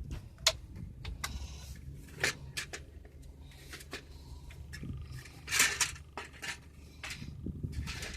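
Hard plastic dashboard trim being pried and pulled off around a car radio: a string of sharp clicks and knocks, with a longer scraping rattle about five and a half seconds in, over a low steady hum.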